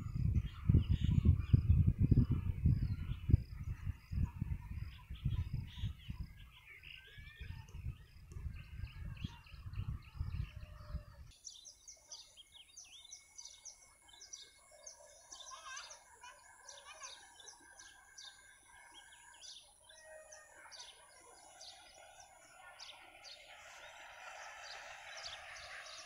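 Birds chirping and calling, with wind buffeting the microphone in low rumbling gusts for the first eleven seconds or so. The rumble then stops abruptly, leaving many short, high bird chirps over a faint steady high tone.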